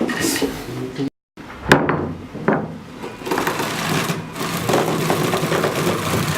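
Small DC gear motors of a four-motor omni-wheel robot whirring as it drives, with a sharp knock shortly before.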